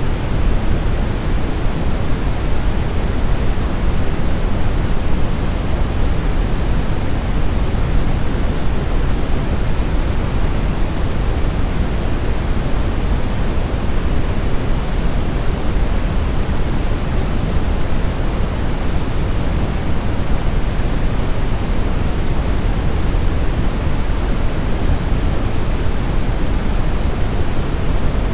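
Brown noise: a steady, even rushing hiss weighted toward the low end, with no changes or events.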